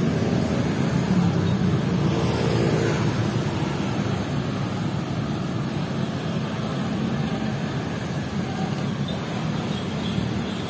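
Road traffic: a motor vehicle's engine passing close by, loudest in the first few seconds, easing into a steady traffic rumble.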